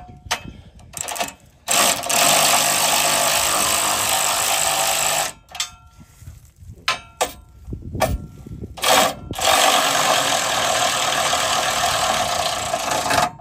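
Cordless ratchet running as it drives in the bolts holding a steel bash plate to the underbody, in two steady runs of about three and a half seconds each, with a few short clicks and knocks between them.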